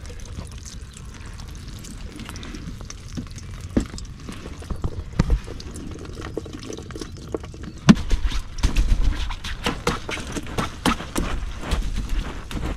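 Water dripping and trickling off a wet whitebait net as it is lifted and handled, with small clicks and rustles of the net and frame. One sharp knock about eight seconds in is the loudest sound, and the clicking is busier after it.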